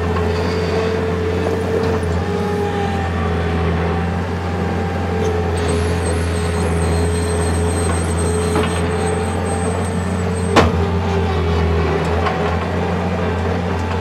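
1997 New Holland L565 skid steer's turbocharged four-cylinder engine running steadily as the machine drives and lowers its boom, with a steady whine over the engine. A single sharp knock about three-quarters of the way through.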